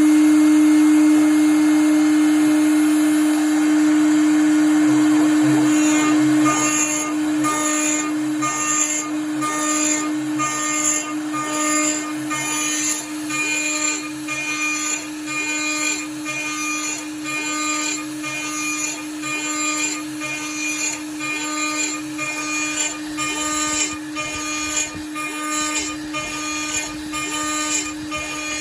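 Milling machine spindle running with a steady hum. From about six seconds in, the end mill cuts a 17 mm hole in 45×45 aluminium profile, the cut pulsing regularly about one and a half times a second.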